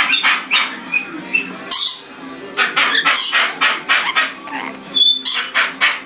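Amazon parrot calling: a rapid run of short, harsh squawks, with a few brief high whistled notes between them.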